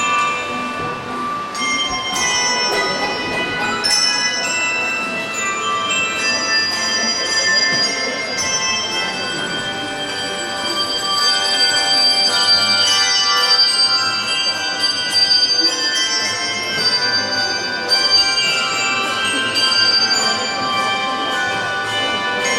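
A handbell choir playing: many bells rung together and left to ring, overlapping high and low tones in a lively piece, a little fuller in the second half.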